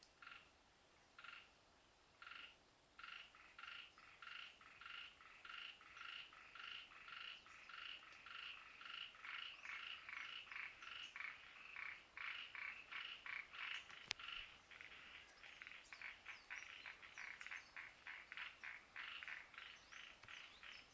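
Frogs calling in a run of short repeated notes, sparse at first, then steady at two or three a second and overlapping as more join in. A single sharp click about two-thirds of the way through.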